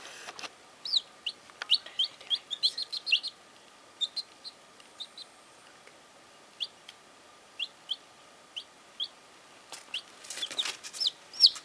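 Baby chicks peeping: short high chirps, each dropping in pitch, in a quick flurry at first, scattered through the middle, and coming faster and louder near the end.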